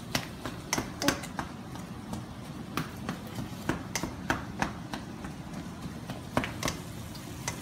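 Ground beef frying in bacon grease in a skillet: a steady low sizzle with irregular sharp crackling pops.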